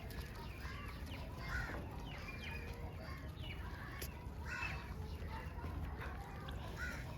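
Several short bird calls, spaced about a second apart, over a steady low rumble.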